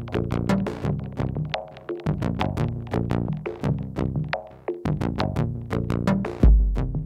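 Electronic music played live on synthesizers and a drum machine: a quick sequenced pattern of short repeated synth notes over a bass line. A heavy, deep bass hit comes in about six and a half seconds in.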